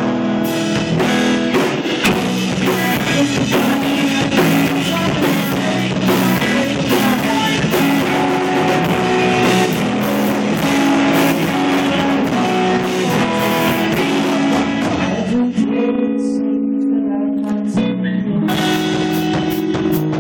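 A rock band playing live, loud, with electric guitar and drum kit. About fifteen seconds in, the drums drop out for roughly three seconds, leaving the guitar ringing alone, then come crashing back in.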